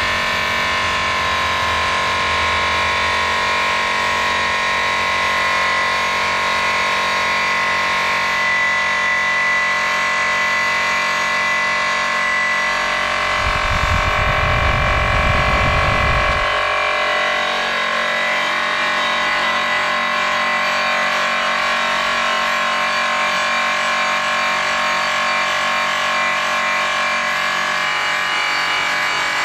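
DeWalt DWP849X variable-speed rotary polisher running steadily with a buffing wheel charged with green rouge, polishing a metal wheel rim in the second polishing stage: a steady motor whine over the hiss of the buff on the metal. A heavier low rumble comes in for a few seconds around the middle, and the whine wavers in pitch in the second half.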